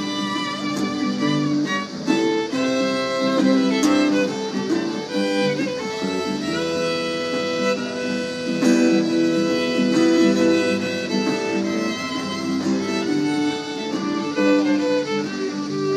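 Instrumental break of a live country-western song: a fiddle plays a melody of long held notes over acoustic guitar accompaniment.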